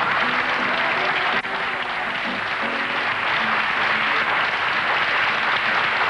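Large audience applauding steadily, with music playing underneath.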